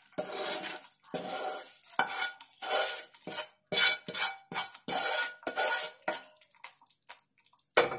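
A spoon scraping and clinking against a pan in quick repeated strokes, about two a second, as the tadka (fried spice tempering) is scraped out into the kadhi. The strokes stop about a second before the end.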